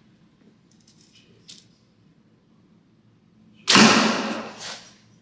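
A 70 lb Mathews Lift 33 compound bow is shot about three and a half seconds in: one sudden loud snap of the string and limbs that dies away over about a second, with a shorter burst close behind. A faint click or two comes earlier while the bow is held at full draw.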